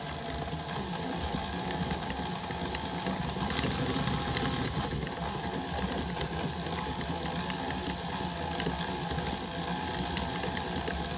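KitchenAid stand mixer running at a steady speed, its motor humming and hissing as the flat beater churns crumbly almond paste, sugar and flour in a stainless steel bowl.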